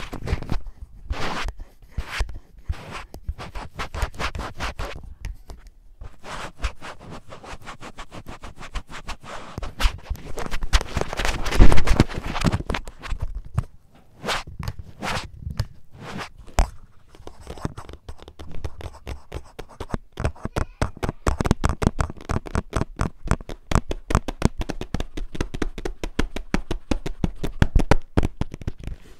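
Fingertips and nails tapping and scratching right on the recording device's microphone, in irregular runs of sharp taps. There is a loud rubbing swell about twelve seconds in, and a fast, even patter of taps through the last third.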